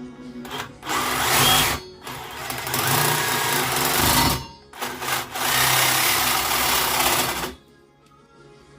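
Power saw cutting through a leaking water pipe, running in three spells of one to two seconds each with short pauses between them.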